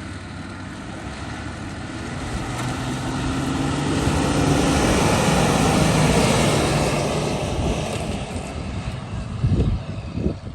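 Off-road 4x4's engine running under load, growing steadily louder over a few seconds and then fading away.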